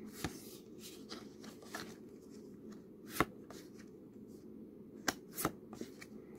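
Stiff board-game cards being flipped through by hand, each one slid off the front of the stack and tucked behind, giving irregular soft slides and snaps. The sharpest snap is about three seconds in and two more come close together around five seconds, over a faint steady low hum.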